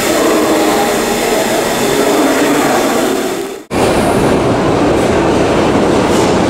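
New York City subway train in motion: the loud, steady rumble and rattle of a moving car with a faint whine. The sound cuts out abruptly a little over halfway through, then returns as a deeper rumble.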